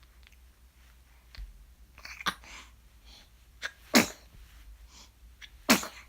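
A person sneezing: a softer sneeze, then two loud sneezes about a second and a half apart.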